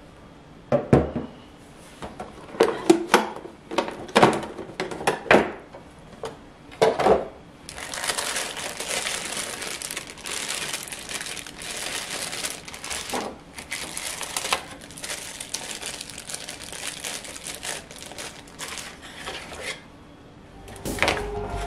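Hands handling plastic packaging: several separate clacks and knocks of the plastic tray and tin box. Then a long stretch of crinkling from the clear plastic bag that holds the clipper guard combs.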